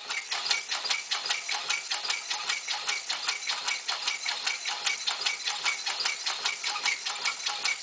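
Homemade bellows steam engine running, its crank-driven clamp valve and linkage making a rapid, even clatter of knocks.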